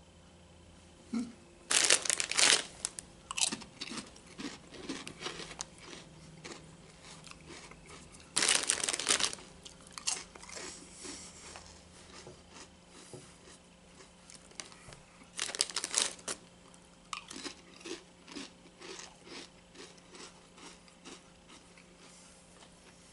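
A crinkly chip bag rustling loudly three times, with crisp crunching of chips being chewed in between.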